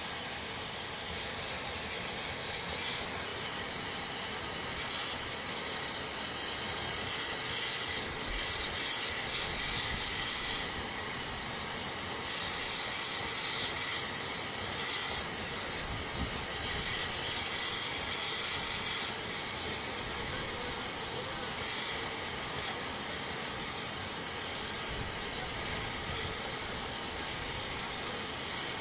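An 1860s open-cab steam locomotive standing in steam, with a steady hiss of escaping steam.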